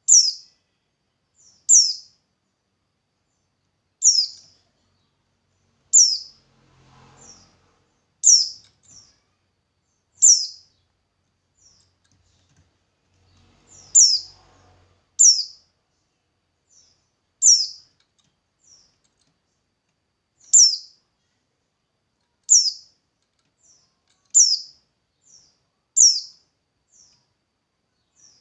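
A bird repeating a short, high chirp that sweeps sharply downward, about once every two seconds, with one or two fainter short notes after most calls.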